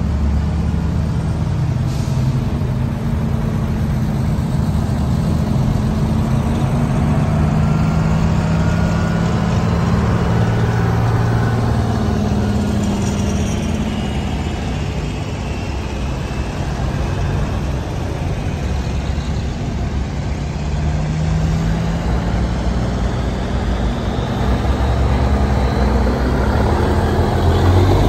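Antique Brockway trucks driving past one after another, their heavy engines pulling with the pitch rising and falling; it grows louder near the end as a tractor unit passes close.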